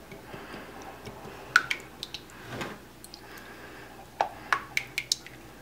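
Wire whisk beating raw eggs in a glass mixing bowl, clicking against the glass in light, irregular taps, a few in quick succession about one and a half seconds in and again from about four seconds.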